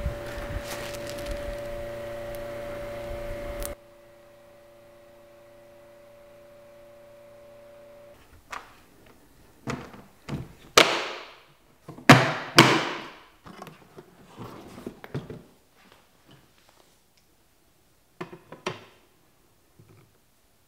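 Hard-shell plastic equipment case being shut: the lid comes down and its latches are snapped closed, a run of separate thunks and snaps. Before that, a steady electrical hum from the open case drops away a few seconds in.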